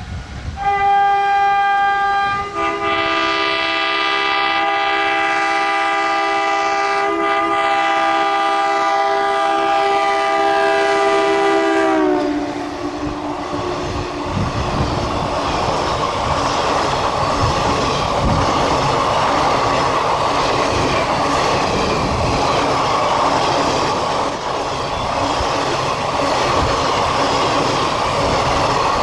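WDM-3A ALCo diesel locomotive's two-note horn sounded in one long blast of about eleven seconds, both notes dropping in pitch as the locomotive passes at speed. Then its rake of ICF passenger coaches rushes by with a steady clickety-clack of wheels over the rail joints.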